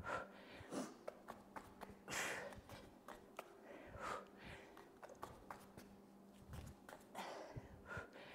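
A woman breathing hard through a set of walkouts: several sharp exhales, the longest about two seconds in, with small taps of hands and bare feet on an exercise mat, over a faint steady hum.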